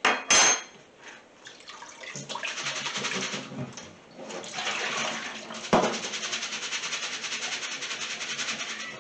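Cloudy rinse water from soaked rice being drained out of a saucepan and a mesh sieve into a stainless-steel sink, splashing and running. There is a sharp clank just after the start and a single knock about six seconds in.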